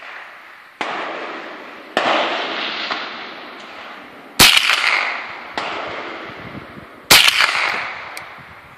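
Five shots from a Ruger SR22 .22 LR semi-automatic pistol, fired at an uneven pace about a second or two apart. Each sharp crack is followed by a long, fading echo, and the third and fifth shots are the loudest.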